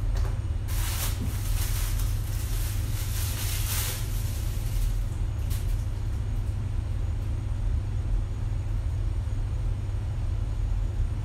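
A steady low rumble, with a few seconds of rustling and crinkling of plastic packaging starting about a second in as shoes are handled and unwrapped.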